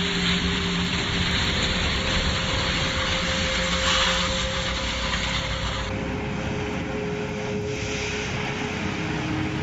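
Excavator diesel engine running steadily with a constant droning whine. The sound changes character about six seconds in.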